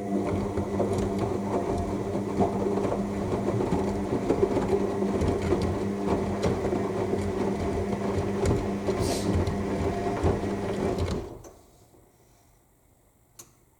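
AEG L7FE7461BI front-loading washing machine tumbling its drum during the final rinse: the motor hums under the slosh and thud of wet laundry and rinse water. The drum stops about eleven seconds in, followed by a pause with a single faint click.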